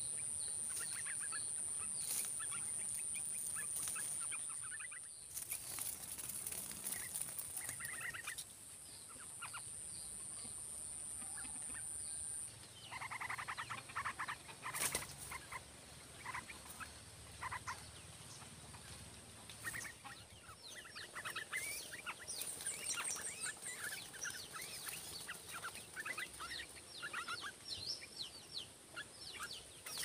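Yellow-vented bulbuls chirping and calling in the undergrowth around the nest, with a quick run of repeated notes about 13 seconds in. A steady high-pitched whine runs underneath for the first dozen seconds and then stops suddenly.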